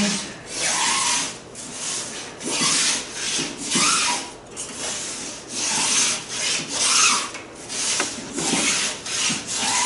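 Small apron plane (block plane) taking shavings off the edge of a thin wooden strip in repeated strokes, about one a second. The plane is tipped outward to cut a slight bevel so the strip fits around the hull's curve.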